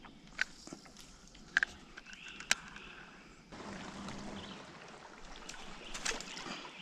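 A few sharp clicks and light knocks, then from about halfway through a steady soft rush of water along a kayak's hull as it turns on the river.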